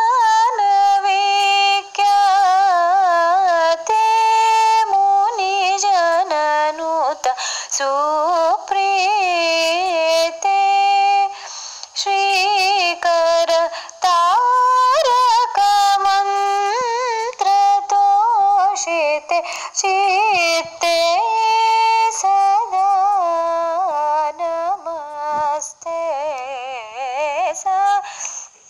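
A high female voice singing a devotional song to Sri Chamundeshwari, in long held notes with quick wavering turns of pitch, phrase after phrase with short breaths between.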